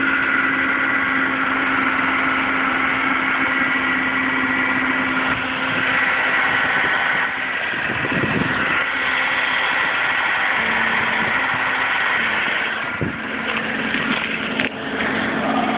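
2007 Audi A4 3.2 quattro's V6 running, with a steady hum made of several held tones: the strange humming that the owner hears when the car is driven hard. The tones shift briefly about halfway through, and a single sharp click comes near the end.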